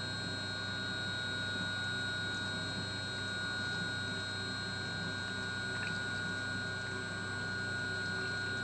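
Arcobaleno Stella pasta extruder running its mixing cycle, its mixing arm turning semolina and water: a steady motor hum with constant high whining tones.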